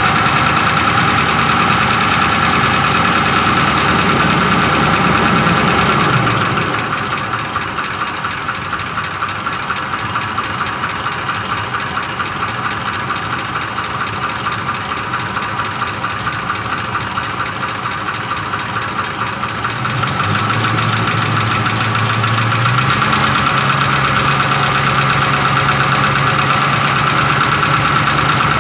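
Ford Triton 5.4-litre three-valve V8 running with the knock it is being checked for. It runs at raised revs, drops back to a quieter, evenly pulsing idle about six seconds in, then picks up speed again in two steps near the end.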